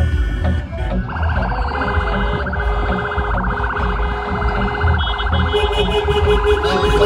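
Electronic vehicle siren with a fast warbling yelp, starting about a second in, over a low steady thumping of music and traffic; a steady horn-like tone joins about two seconds before the end.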